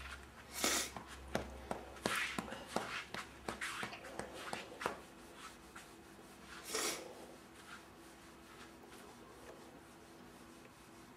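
A hand patting and rubbing a baby's back to bring up a burp: soft, irregular pats and rubs for about five seconds, then one louder short noise about seven seconds in.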